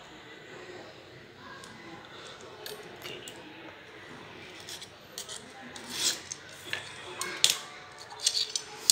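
Snap-off utility knife scraping and scoring through a thin clear plastic sheet drawn along a ruler, with sharp clicks and taps in the second half that get louder toward the end.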